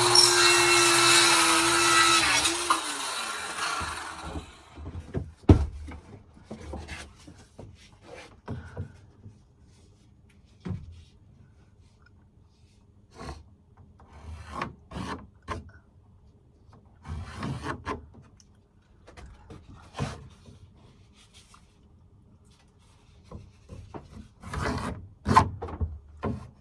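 A power tool runs loudly and winds down about three seconds in, its motor slowing to a stop. Then wooden ceiling boards are handled, with scattered knocks and rubbing of wood on wood.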